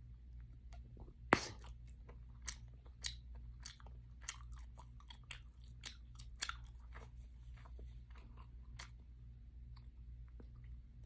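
Close-miked gum chewing with repeated sharp, wet pops and clicks of the gum, the loudest pop about a second in, then irregular pops every half second or so.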